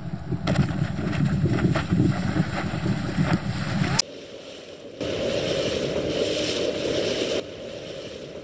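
Wind buffeting the microphone and water rushing past while riding an efoil on the sea, with scattered clicks and knocks. About four seconds in it cuts abruptly to a quieter hiss, then a louder, even water rush that drops off again near the end.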